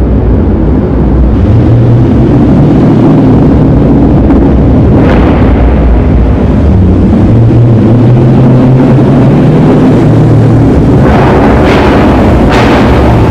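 Dodge Charger Scat Pack's 392 (6.4-litre) HEMI V8 with a muffler delete, driving slowly and running loud with a deep exhaust tone. A few sharp exhaust pops come off throttle, one about five seconds in and three close together near the end.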